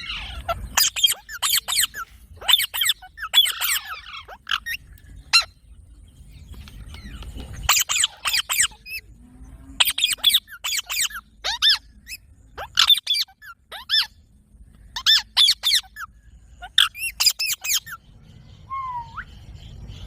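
Rose-ringed (Indian ringneck) parakeet screeching: short, shrill calls repeated in quick clusters with brief pauses between them.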